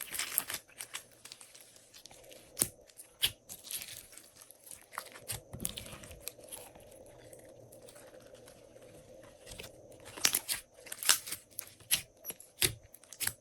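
Glossy slime being worked by hand, giving irregular sticky clicks, pops and crackles. They come in clusters near the start and again toward the end, with a quieter stretch in the middle.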